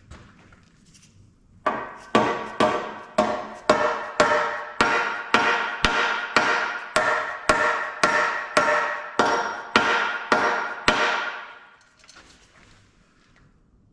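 Hammer blows on the flywheel housing of a Detroit Diesel 2-53, about two a second for some nine seconds, each with a brief metallic ring. The housing is being driven onto stubborn dowel pins on the engine.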